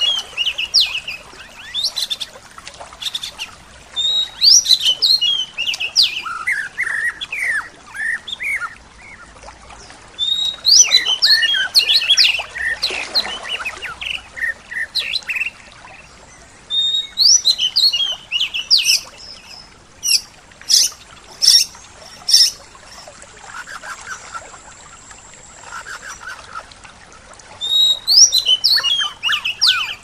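Songbird singing a short, fast, high phrase of quick falling notes, repeated every few seconds. Other birds add lower calls and a few sharp chips in between.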